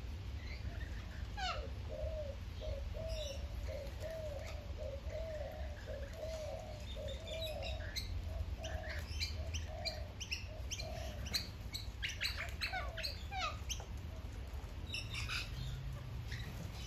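Birds at a feeder: a quick run of low, repeated cooing notes, two or three a second for several seconds, then rainbow lorikeets' high chattering and squeaks, with wings flapping near the end.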